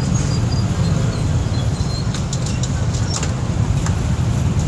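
Steady low rumble of dense motorbike and car traffic, heard from among the vehicles, with a few light clicks around the middle.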